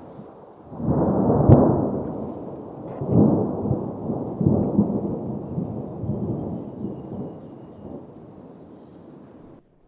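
Thunder rumbling in rolling waves, with a sharp crack about a second and a half in and further swells that fade away towards the end.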